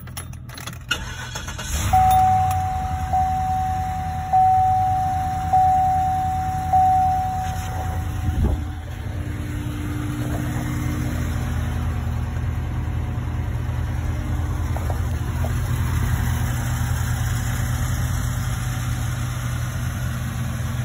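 Cadillac DTS's Northstar V8 starting up about two seconds in and then idling steadily, while the car's warning chime dings five times, about once every second. A single knock comes about eight seconds in, and the chime stops there.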